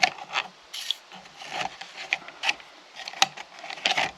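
Irregular clicks, knocks and short scrapes of small parts and tools being handled and set down on a workbench, about a dozen separate sounds with the sharpest knocks about three and four seconds in.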